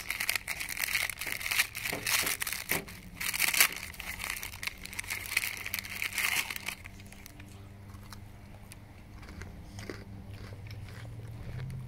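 Food wrapper crinkling with crunching for about the first seven seconds, then it quiets to a low steady hum.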